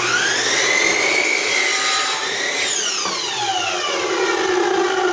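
Craftsman miter saw switched on, its motor whine rising as the blade comes up to speed, then cutting through a wooden board. About two and a half seconds in, the trigger is let go and the blade spins down with a long falling whine.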